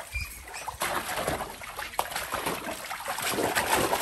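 Water splashing and sloshing in a dog paddling pool as a German shorthaired pointer moves about in it, with a few sharp knocks and the splashing growing louder toward the end.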